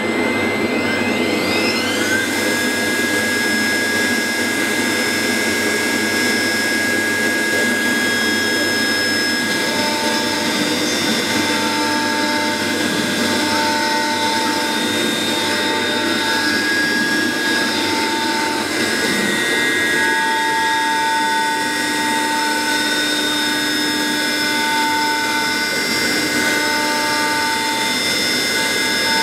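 AXYZ 4010 CNC router spindle spinning up with a rising whine over the first two seconds, then running at a steady high pitch over the steady noise of the vacuum hold-down. From about ten seconds in, a further tone comes and goes as the bit moves through the board.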